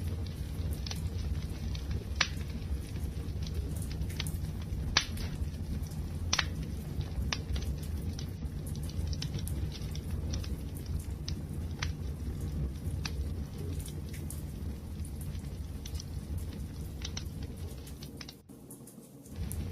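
Wood fire burning, with a steady low rumble and scattered sharp crackles and pops, a few louder snaps among them. The whole sound briefly dips away near the end.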